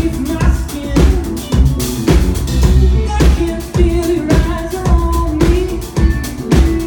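Live pop band playing loudly: drum kit keeping a steady beat of about two hits a second, under electric bass and keyboards.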